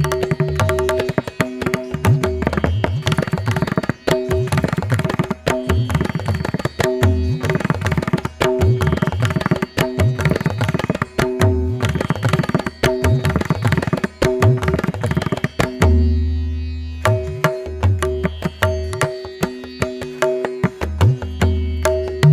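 Background music with a tabla-like drum beat over repeating held notes; about two-thirds of the way through the drums drop out briefly over a deep bass note.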